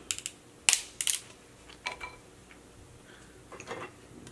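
Cooked king crab leg shell cracking and snapping as it is cut and pulled open. There are several sharp cracks, most in the first second or so, with a few more about two seconds in and near the end.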